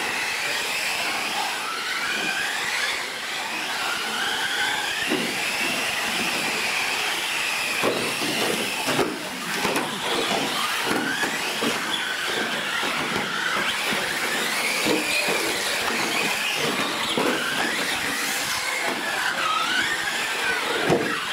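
Several R/C trophy trucks racing, their motors whining and rising and falling in pitch with throttle, with frequent short knocks from the trucks bouncing over the dirt track.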